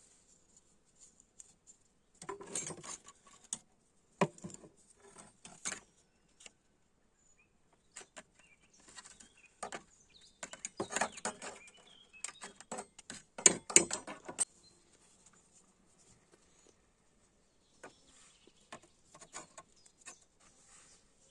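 Irregular clicks, taps and scraping of objects being handled at a workbench, coming in clusters with short pauses between.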